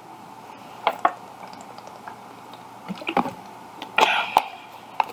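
Plastic water bottle being drunk from and handled: a few small clicks about a second in and again around three seconds, then a brief crinkle about four seconds in.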